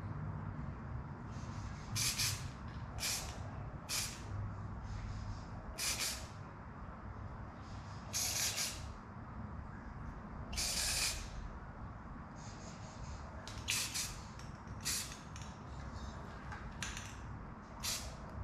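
Aerosol spray paint can sprayed in about a dozen short hissing bursts, each lasting from a fraction of a second to about a second, the longest about halfway through.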